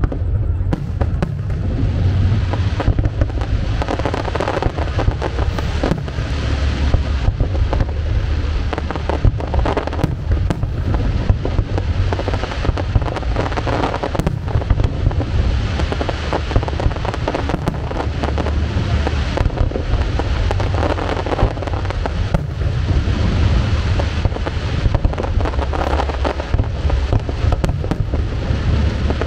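Aerial fireworks display: a continuous barrage of overlapping shell bursts and crackles over a deep, rolling boom.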